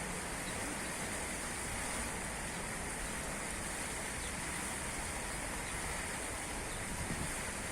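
Steady, even hiss of noise with no distinct events.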